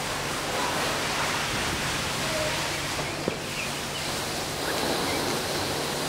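Steady rushing outdoor ambient noise, with a few faint short calls and one sharp click a little past three seconds in.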